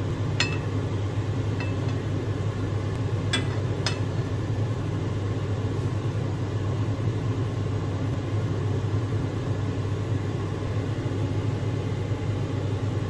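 A steady low hum throughout, with a few short clinks of a serving spoon against the plate and wok: one about half a second in, a faint one a second later, and two close together between three and four seconds in.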